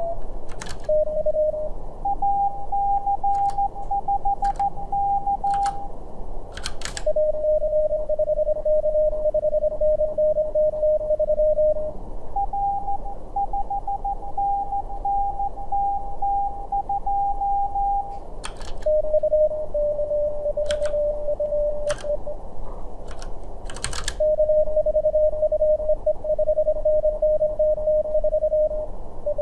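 Morse code (CW) at about 25 words per minute from the Morse Runner contest simulator: short exchanges alternate between two slightly different tone pitches as the operator's sending and the simulated stations' replies trade call signs and serial numbers. The tones sit over a steady hiss, with sharp computer-key clicks between the exchanges.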